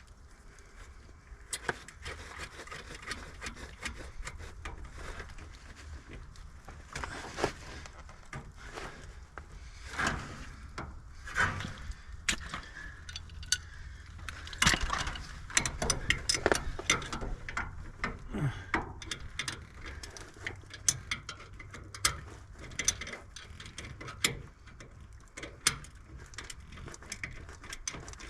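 Hand tools and metal fittings being worked while a circulator pump is mounted: an irregular run of clicks, knocks and short scrapes, busiest about halfway through, over a low steady rumble.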